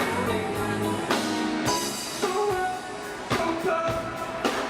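Music with a drum beat and a singing voice.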